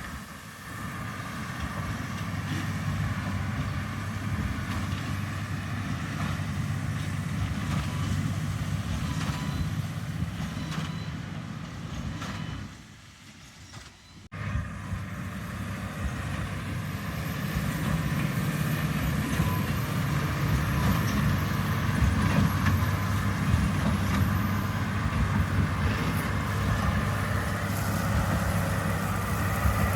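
Heavy vehicle engine running steadily with a deep, even hum. It drops away briefly a little before halfway, then comes back somewhat louder.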